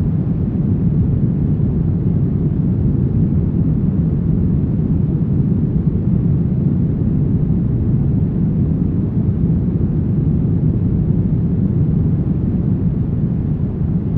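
Brown noise: a steady, deep rushing hiss with most of its weight in the low end and little above the midrange, unchanging throughout.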